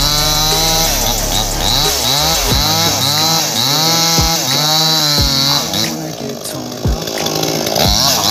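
Two-stroke chainsaw cutting into a tree stump, its engine revving up and dropping back again and again under load. The revving eases and gets quieter about six seconds in.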